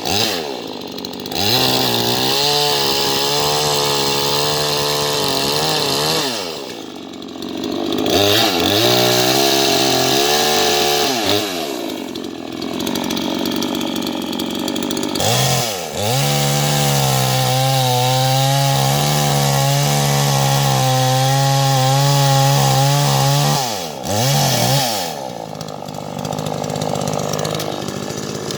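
Two-stroke Proteco petrol chainsaw revving up and held at full throttle while cutting firewood logs, three cuts of several seconds each. Between cuts the engine drops back toward idle.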